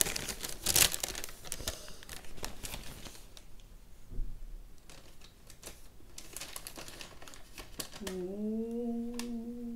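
Plastic cake packaging being handled and unwrapped, a dense crinkling for the first three seconds, then fainter rustles and clicks. Near the end a woman's voice holds one long drawn-out note for about two seconds.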